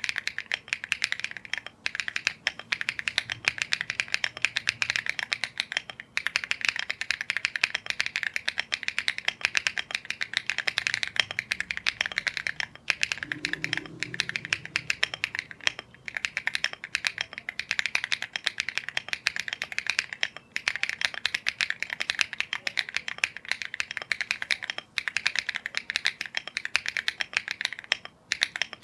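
Fast, continuous typing on a Rainy75 mechanical keyboard fitted with KTT Macaron Green linear switches: a dense stream of key clacks, broken by a few brief pauses.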